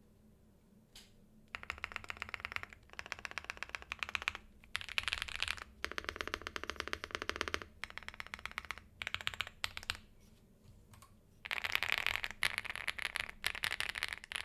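Bridge75 Plus mechanical keyboard with MMD Princess linear switches, an FR4 plate, stock stabilizers and Cherry-profile keycaps being typed on fast. The clacking comes in bursts with short pauses between, and the loudest run is near the end.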